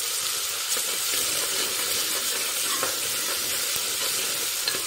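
Chopped onions and ginger-garlic paste sizzling in hot oil in an aluminium pressure cooker, stirred with a spoon against the pan. The onions are already lightly browned.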